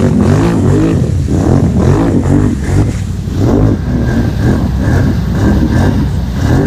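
ATV engine revving up and down in repeated short throttle bursts while the machine churns through deep mud and water, with water splashing around it.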